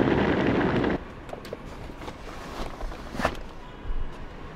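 Wheels of a hard-shell rolling suitcase running over concrete pavement, a loud continuous rumble that stops about a second in. After it come a few light knocks and clicks of bags being handled into a car, the sharpest about three seconds in.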